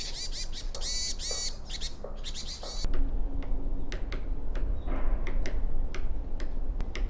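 Small birds chirping in quick repeated notes, then, about three seconds in, a woodpecker tapping at a tree with sharp single knocks roughly two a second.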